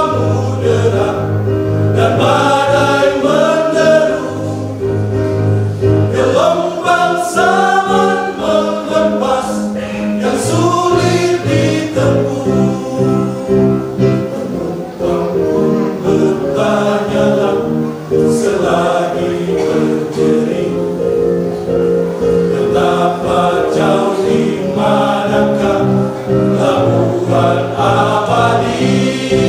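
Church choir singing a gospel song in several voice parts, with long held chords.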